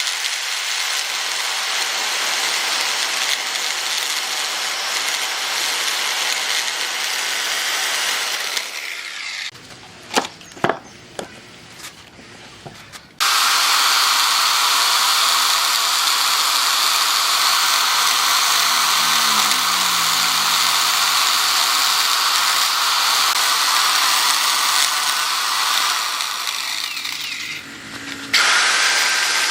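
Power tool running steadily on wood in several edited stretches, with a quieter break of a few sharp clicks about ten seconds in.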